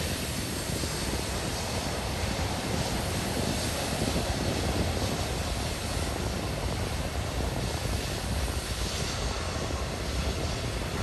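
BNSF manifest freight train running past with a steady, unbroken rumble.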